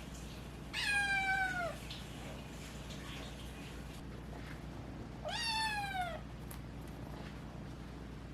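A young cat meowing twice, about four seconds apart: the first meow slides down in pitch, the second rises and then falls. The cat's voice is changing as it grows up.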